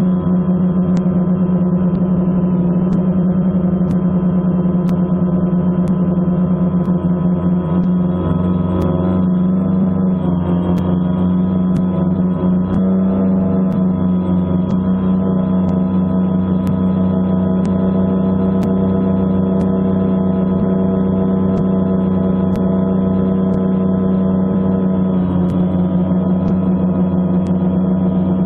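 Multirotor drone's motors and propellers buzzing steadily, with a constant low hum and a stack of higher tones above it. The pitch shifts a little near the end as the drone climbs above the trees.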